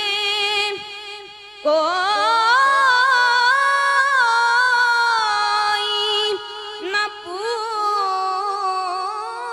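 A young woman singing an Urdu naat unaccompanied, in long ornamented held notes. One note rises and is held for several seconds. The line breaks off twice for a short pause.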